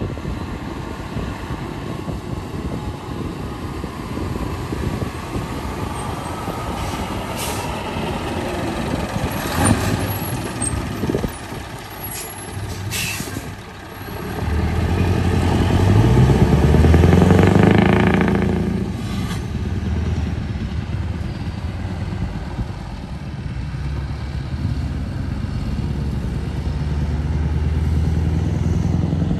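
Scania V8 diesel truck pulling a loaded trailer: the engine rumbles as it approaches and slows, with a few short air-brake hisses about halfway through. It then revs up loudly as it pulls away past, with a gear change a few seconds later, and settles into a steady pull as it drives off.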